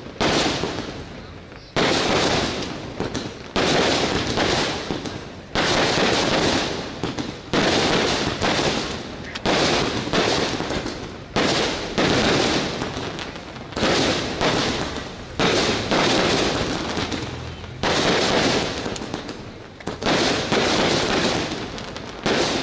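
Fireworks going off: a sharp bang about every one and a half to two seconds, each dying away over a second or so.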